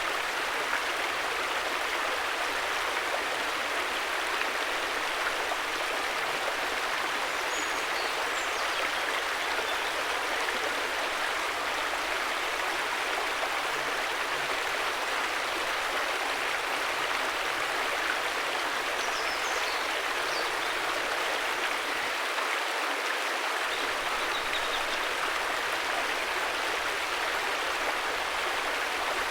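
River water rushing steadily, with a few faint high chirps now and then.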